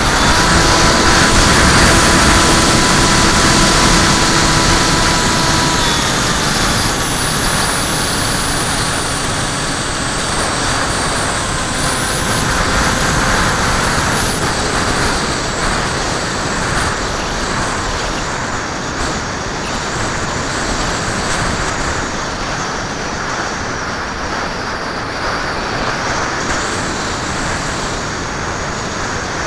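Electric motor and propeller of a HobbyKing Skyfun foam RC plane whining in flight, heard through the on-board camera under heavy wind rush. The whine drops in pitch about six seconds in, as if the throttle is eased.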